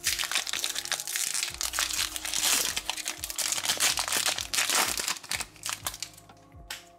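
Foil booster-pack wrapper crinkling and crackling as it is torn open and peeled apart by hand, dying down near the end as the cards are drawn out.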